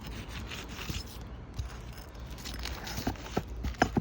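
Old, brittle asphalt shingles being pried up by hand, scraping and crackling, with a few sharp clicks that come more often near the end as the shingles crack.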